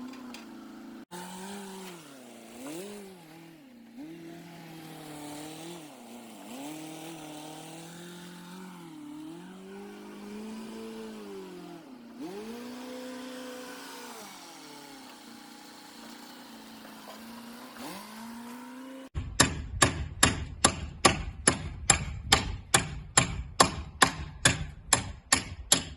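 An engine running, its speed rising and falling again and again. About two-thirds of the way in it gives way abruptly to a fast, even series of loud sharp knocks, about three a second.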